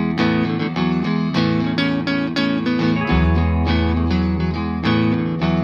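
Background music: a guitar-led instrumental passage with a steady strummed rhythm; a deep bass note comes in about halfway through.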